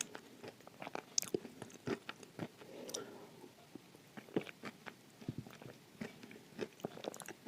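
Close-up crunching of dry edible clay being bitten and chewed: many sharp, irregular crackles and snaps.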